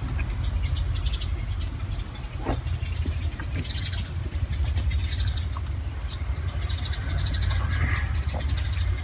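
Outdoor background: a steady low rumble with repeated bursts, each about a second long, of high, fast chirring.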